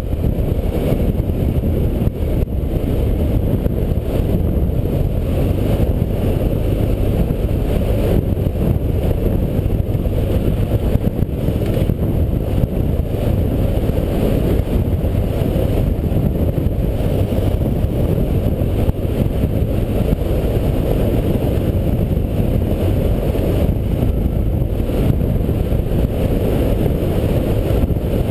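Off-road vehicle running steadily along a dirt track, its engine heard through heavy, low wind rumble on the mounted camera's microphone.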